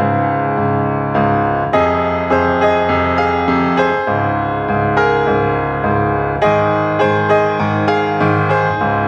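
Background piano music: notes and chords struck at an even pace, each one dying away.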